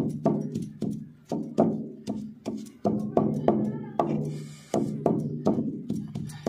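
Stone pestle (lodha) pounding garlic on a flat grinding stone (sil), hard knocks about two to three a second.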